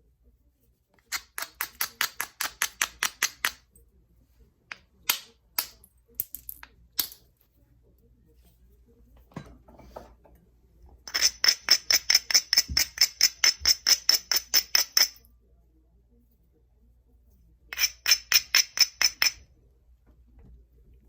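Light, rapid clicking of a knapping tool against novaculite, about six clicks a second with a glassy ring, in several runs: a short run about a second in, a few single clicks around 5 to 7 s, a longer run from about 11 to 15 s and a last short run near the end.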